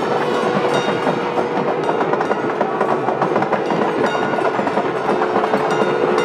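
Continuous din of a temple chariot procession: a dense crowd with rapid clattering, likely drums, and a steady held tone running through it.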